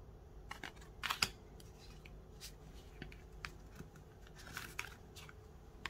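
Tarot cards being handled: a scattering of light clicks and slides of card stock as a card is laid on a pile and the next one is drawn off, the loudest cluster about a second in and another about four and a half seconds in.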